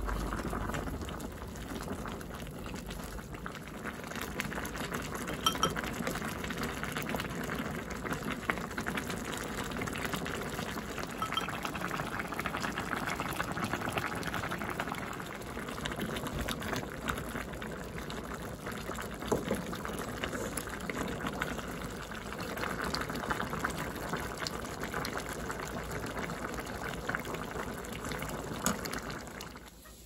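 Pot of Korean seaweed soup (miyeokguk) boiling hard on high heat: a steady bubbling with many small pops.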